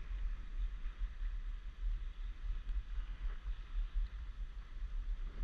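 Wind buffeting the microphone in an uneven low rumble, over a steady hiss of small waves lapping around a stand-up paddleboard on open sea.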